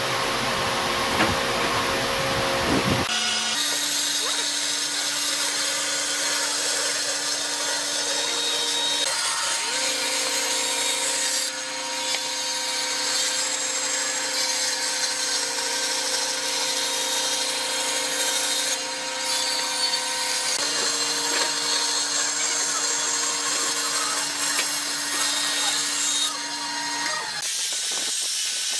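Bandsaw running with a steady hum and cutting along a curved line through a pine board. The hum and cutting noise shift slightly several times as the board is fed. Near the end it gives way to the hiss of an angle grinder sanding the wood with a sanding pad.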